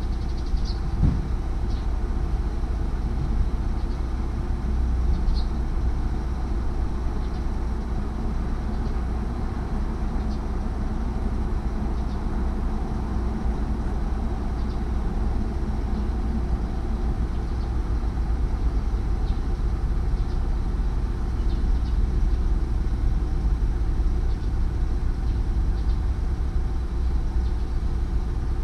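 Steady low rumble of street traffic, with a few faint short high chirps scattered through.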